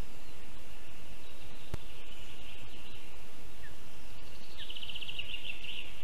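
Distant forest songbirds over a steady hiss, with a rapid trill of evenly spaced notes near the end. A single sharp click just under two seconds in.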